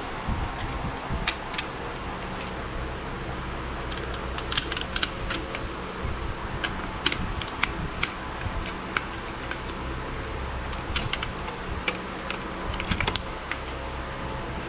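Irregular sharp clicks and light metal taps from hand tools working on engine parts during a teardown, over a steady background hum.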